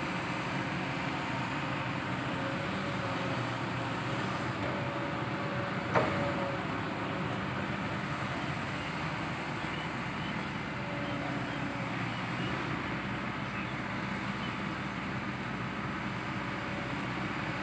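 Kobelco SK200-8 Super XM hydraulic excavator's diesel engine running steadily as the machine digs and swings its bucket. A single sharp knock comes about six seconds in.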